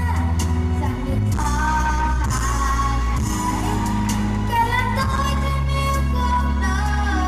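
Live Vietnamese pop song played loud through a stage sound system: singing over a backing track with a deep, sustained bass line.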